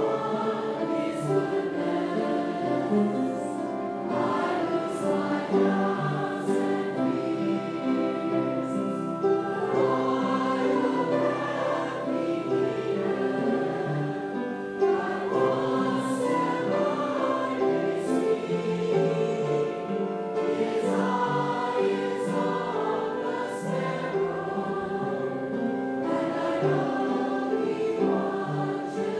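Church congregation singing a hymn together, many voices holding long sung notes.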